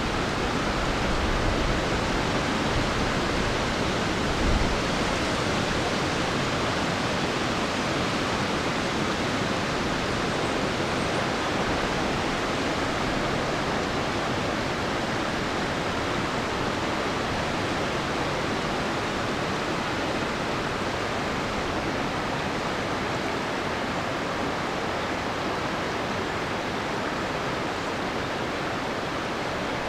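Steady rush of a shallow, rocky river running over stones and riffles, with a brief low thump about four and a half seconds in.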